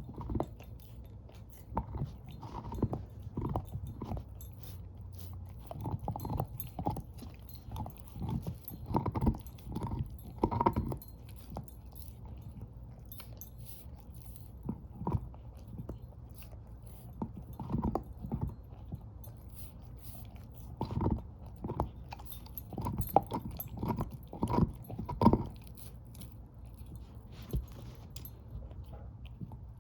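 Shepherd-mix dog gnawing and crunching on a bone, in irregular bouts of bites with a couple of short pauses between them.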